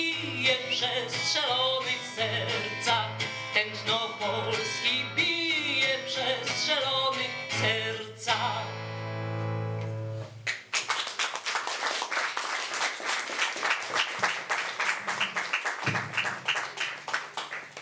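Woman singing in Polish to her own acoustic guitar, ending the song on a long held last note about eight seconds in. From about ten and a half seconds the audience applauds, with dense clapping that thins near the end.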